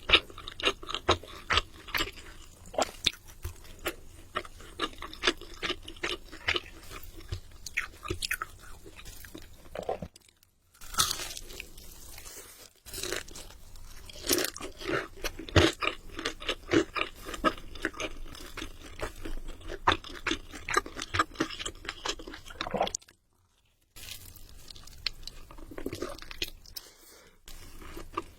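Close-miked eating of crispy fried chicken: many sharp, irregular crunches of the fried coating with chewing in between. The sound drops out briefly twice, about ten seconds in and again after about twenty-three seconds.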